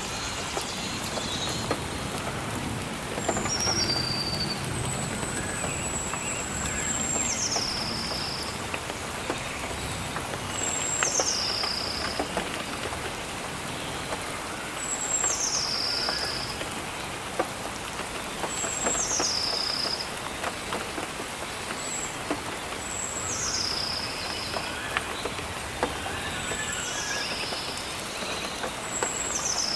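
Steady rain falling on leaves, with a scatter of individual drop ticks. A bird repeats a high whistled call, a held note that drops sharply to a lower one, about every four seconds.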